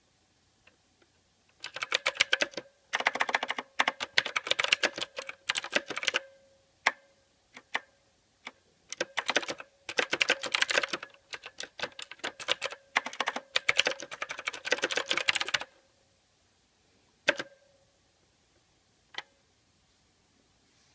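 Mechanical keyboard typing: clattering runs of rapid keystrokes in several bursts of a few seconds each, broken by pauses and a few single key presses. The last few seconds are quiet apart from two isolated keystrokes.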